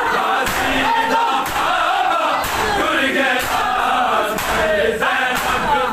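A crowd of men chanting a noha lament together, with a sharp slap of hands on bare chests about once a second in unison: rhythmic matam.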